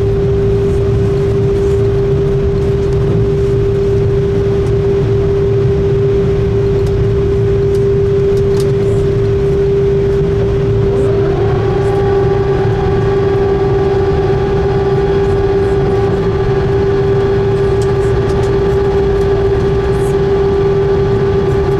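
Cabin noise of an Airbus A330 rolling out after landing: a loud steady engine hum with one strong steady tone over a low rumble. About halfway through, a second whine rises in pitch and then holds steady.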